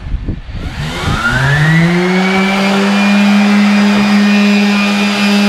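Electric power sander switched on. Its motor spins up with a rising whine over about a second, then runs on at a steady high speed. A few light knocks come just before it starts.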